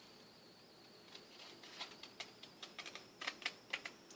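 Tonic craft scissors snipping through paper: short crisp clicks start about a second in and come faster and closer together toward the end.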